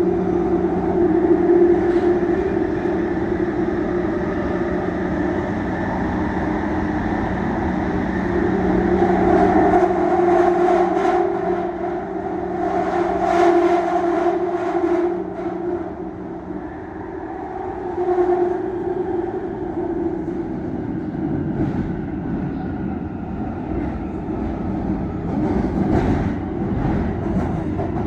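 London Underground Jubilee line train running fast through a tunnel, making odd whining noises: steady motor tones over the rumble, one low whine dropping away about halfway through, with bouts of clattering clicks from the wheels on the track.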